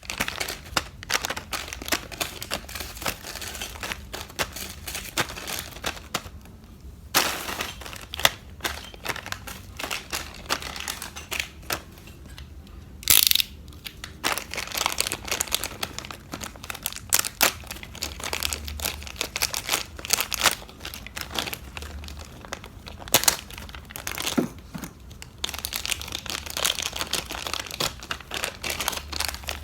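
Toy packaging being handled and opened: irregular crinkling and rustling with many small clicks. There is a short, louder burst of crinkling about thirteen seconds in.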